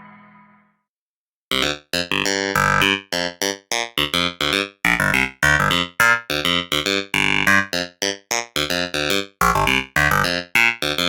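Outersect Modeler software synthesizer playing a keyboard-like preset: a fast, stop-start run of short staccato notes that begins about one and a half seconds in, after the previous sound fades away.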